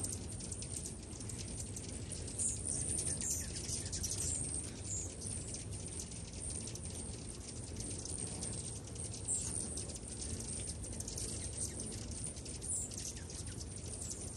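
Many hummingbirds at feeders chipping and squeaking: a constant stream of short, very high-pitched chirps, over a steady low background hum.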